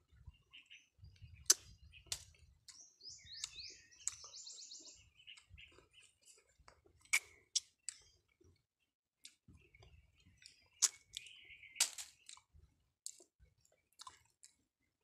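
Close-up chewing and mouth smacking of a person eating a ripe star apple, with a few sharp clicks, the loudest about a second and a half in. Birds chirp in the background, with a run of rising chirps around three to five seconds in.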